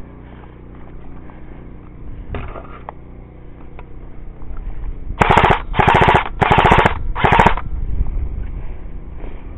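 Airsoft electric gun (AEG) firing four short full-auto bursts in quick succession, each a fast rattle of shots, a little past halfway through.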